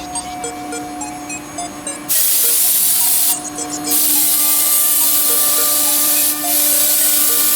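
Background music with steady held notes; about two seconds in, a loud, steady hiss starts abruptly and covers it, breaking off briefly twice.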